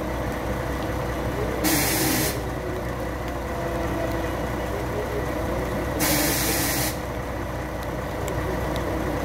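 Truck-mounted mobile crane's engine running steadily, with two short hisses of released air, about two seconds in and again about six seconds in.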